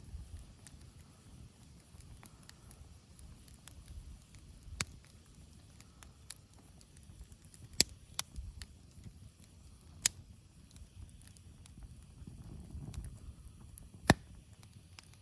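Wood campfire crackling, with a few sharp, scattered pops over a low steady rumble.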